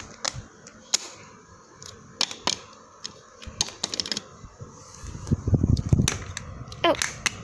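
Small plastic Littlest Pet Shop figure tapped and hopped across a wooden tabletop and plastic toy furniture, giving a string of sharp, irregular clicks. A low rumble of handling comes in about five seconds in.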